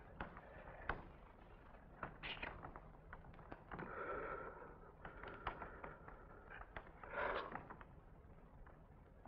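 Faint, scattered light knocks and taps, with a few soft shuffling swells: bare feet and body moving on a stage floor during a solo mime.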